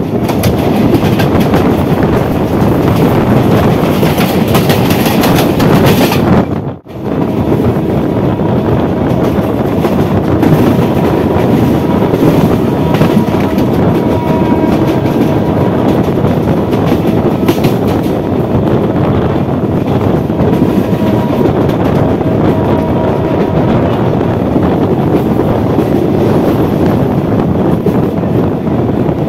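Three-phase MEMU electric train running at speed, heard from on board: a steady rumble of wheels on rail with clickety-clack over joints and points. The sound cuts out for an instant about seven seconds in.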